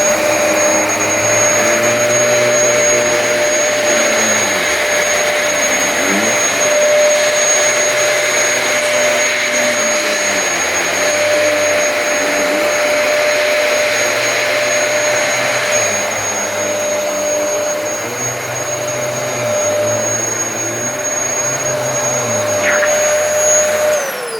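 Dyson DC33 upright vacuum cleaner running steadily with a high whine while vacuuming the hall carpet, its lower tones rising and falling every few seconds. Near the end it is switched off and winds down in pitch.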